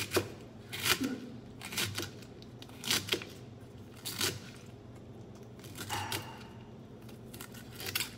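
Chef's knife slicing through cabbage onto a plastic cutting board, each stroke a crisp crunch ending in a knock on the board. The cuts come about once a second, with longer gaps in the second half.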